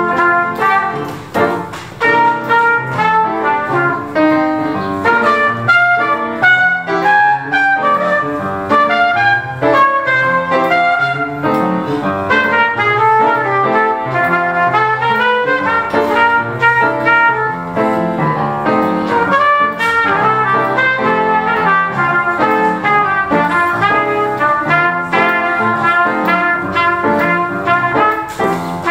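Trumpet playing a jazz solo, a busy line of quickly changing notes over piano accompaniment.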